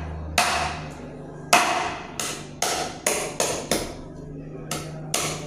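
A blade chopping goat meat and bone on a chopping board: about nine sharp chops at an uneven pace, some in quick runs.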